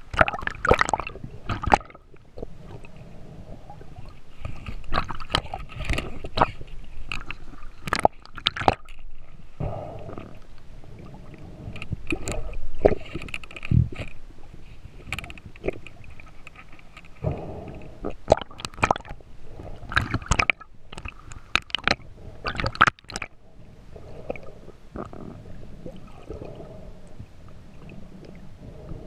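Underwater sound picked up by a camera in the sea: a constant muffled water rumble with many irregular clicks and knocks.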